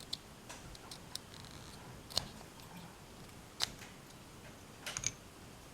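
Faint, scattered sharp clicks of a small plastic microwave door micro switch being taken apart by hand, about seven in all, the loudest about two seconds in and about three and a half seconds in, with a quick pair near the end.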